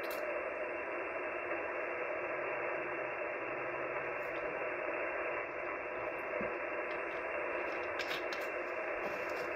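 Icom HF ham transceiver's speaker giving a steady hiss of band noise on 3.900 MHz in the 75-metre band: an empty frequency with no station transmitting. The hiss sounds muffled, with no treble above about 3 kHz.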